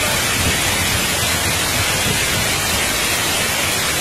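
Loud, steady rush of a fast-flowing flood torrent churning over rocks and around a stranded car.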